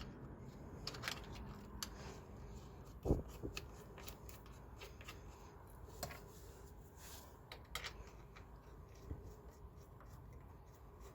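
Faint, scattered clicks and light metallic knocks from truck battery cables and terminal hardware being handled, with one louder knock about three seconds in.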